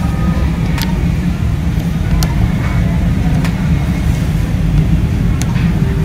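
A steady low rumble runs throughout, with about four short, sharp clicks spread through it: the buttons of an HP Color LaserJet Pro MFP M181fdw's control panel being pressed to step through the copy menu.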